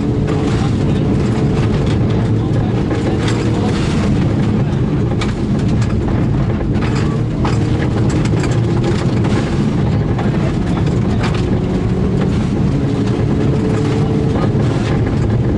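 Turbocharged rally car engine running hard at steady high load, its pitch rising and falling a little. Frequent sharp clicks and knocks of gravel striking the car run through it.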